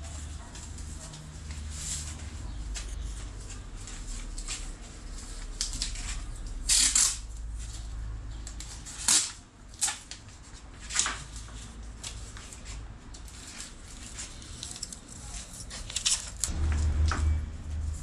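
Masking tape pulled from the roll and torn off in several short, sharp rips, with paper rustling as it is taped down over the sticker on an outboard motor's cowling. The loudest rips come about seven, nine and eleven seconds in.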